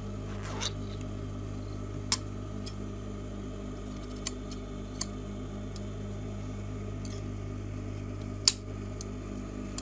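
Scissors trimming the ends of a zipper: a few sharp snips, the loudest about eight and a half seconds in, over a steady low hum.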